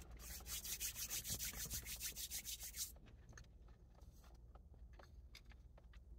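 Hands rubbed briskly together, a quick run of dry swishing strokes, several a second, for about three seconds, brushing off food after eating fried chicken. Then only a few faint clicks.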